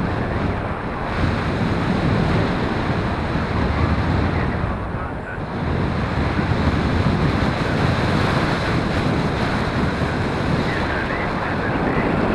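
Airflow hitting the microphone of a paraglider pilot's camera in flight: steady, loud wind noise, dipping briefly about five seconds in.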